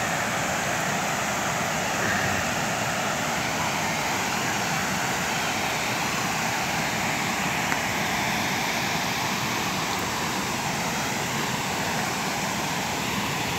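Steady rush of white water pouring over a waterfall.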